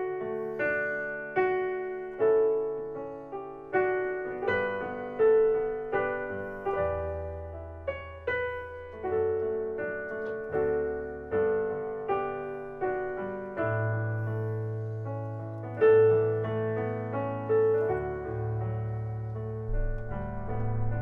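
Slow piano music: single notes and chords struck roughly once a second, each dying away, with long held low bass notes joining about a third of the way in.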